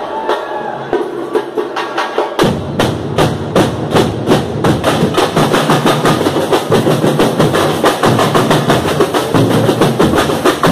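Samba school drum section (bateria) playing a fast samba rhythm on snare drums struck with sticks and other percussion. The deep surdo bass drums join about two and a half seconds in, filling out the beat.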